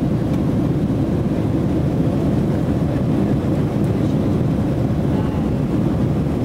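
Jet airliner's engines at takeoff thrust, heard from inside the passenger cabin as a steady, low noise of engines and rushing air while the plane lifts off the runway and climbs.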